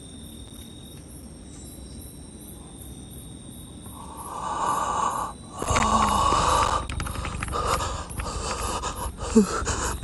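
A person breathing heavily close to a phone microphone, with loud breaths about a second long starting about halfway in. Before that there is only a low, steady background.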